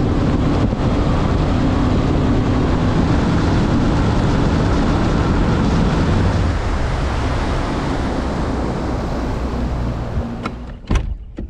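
Bass boat running fast on the water: the outboard motor's steady drone under heavy wind and water rush, easing off about ten seconds in, with a few sharp knocks near the end.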